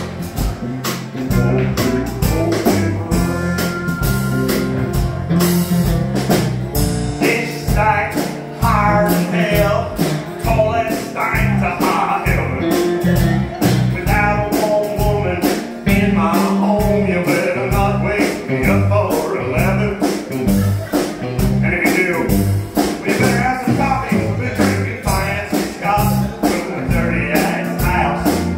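A live country band playing a song: electric and acoustic guitars, pedal steel guitar, electric bass and a drum kit.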